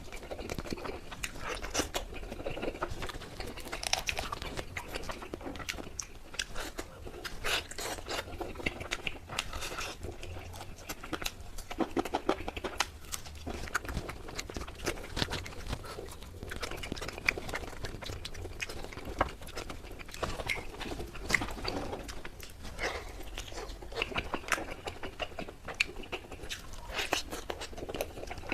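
Close-miked chewing and biting of tandoori chicken, with many irregular short wet mouth clicks and crunches.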